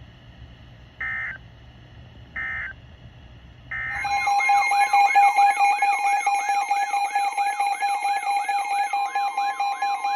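Emergency Alert System SAME header: three short buzzy data bursts about a second apart, then a loud alert tone. The alert is a steady tone overlaid by a warble that sweeps upward about twice a second, with a second steady tone joining near the end.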